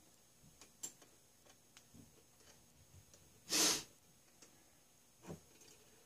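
Faint metal clicks and taps as small parts of a model steam engine are handled and fitted by hand. A short, loud sniff about three and a half seconds in, and a smaller one about five seconds in.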